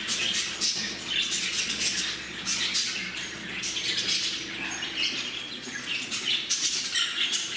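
A flock of budgerigars chattering: dense, overlapping high chirps and warbles with no break.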